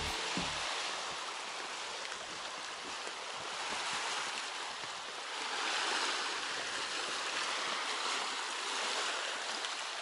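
Small sea waves washing onto a stony shore, a steady hiss that slowly swells and eases.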